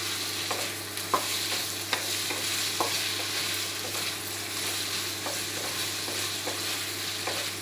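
Cubed chicken and sausage sizzling in hot oil in a wok while being stir-fried, with the stirring utensil knocking and scraping against the wok about once a second.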